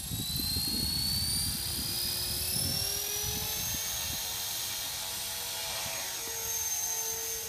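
Blade 450X electric RC helicopter spooling up: the brushless motor's high whine rises in pitch over the first few seconds, then holds steady as the helicopter lifts off the grass, with gusty low buffeting on the microphone.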